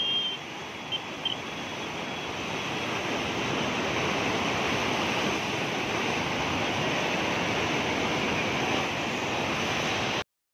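Muddy floodwater rushing in a torrent down a normally dry riverbed swollen by heavy rain: a steady, dense rushing noise that cuts off suddenly near the end.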